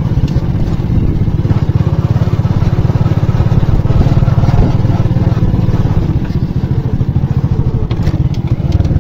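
A small motorcycle's engine running steadily as it is ridden along a rough dirt track, heard close up from the rider's seat.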